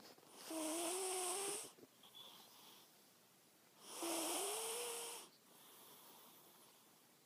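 A domestic cat snoring: two snores about three and a half seconds apart, each lasting over a second, with a whistling tone that rises in pitch.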